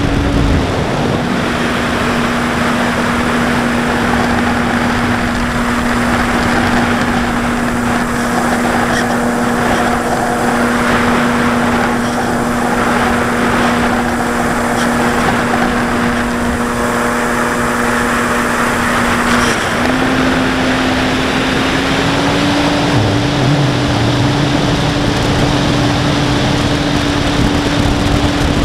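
Carbon-Z Cub RC plane's electric motor and propeller heard from its onboard camera: a steady motor tone over the rush of airflow. The pitch steps down slightly about a second in and climbs back up about twenty seconds in.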